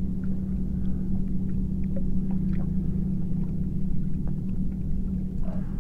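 Steady low hum and rumble of a boat motor, holding one pitch throughout, with a few faint scattered ticks over it.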